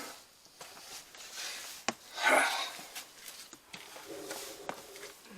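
A person scrambling over boulders: sharp clicks and scuffs of shoes and hands on rock, with a louder short rustling rush about two seconds in.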